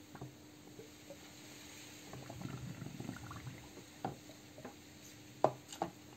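Soapy cleaning solution swishing and sloshing in a plastic tub as hands scrub small brake master cylinder parts under the water. A few sharp knocks of the parts against the tub come in the second half, the loudest about five seconds in.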